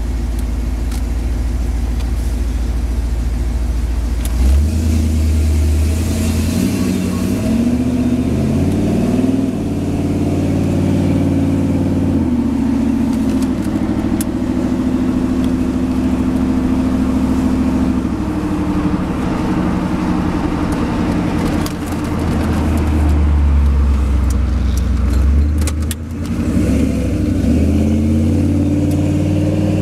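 Chevrolet Vortec 350 V8 in a 1978 Chevy pickup, heard from inside the cab with a Turbo 350 automatic transmission. It runs with a steady low drone, then pulls away about four seconds in, climbing in steps as the transmission shifts. It settles to a steady cruise and accelerates again twice in the second half.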